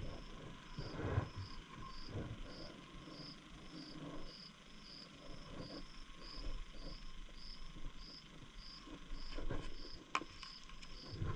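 An insect chirping steadily at night, a steady run of short high chirps a little over two a second. A few knocks and rustles of things being handled stand out, near the start and around ten seconds in.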